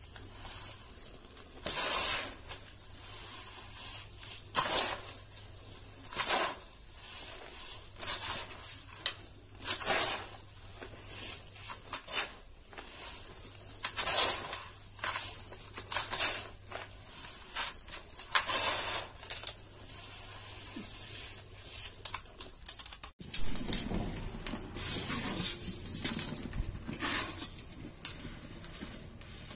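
Fine dry dusty sand scooped and let fall by hand into a bowl, giving a soft hissing swish every second or two. About 23 s in this gives way to denser crackling as a clump of the sand is crumbled between the fingers.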